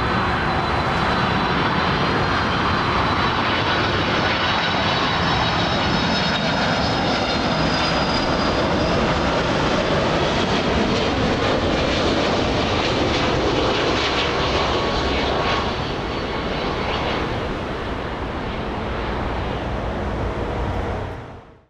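Boeing 767 twin turbofan jet engines during a close-up landing, a steady, loud roar with faint high engine tones. The roar eases a little about three-quarters of the way through and fades out at the end.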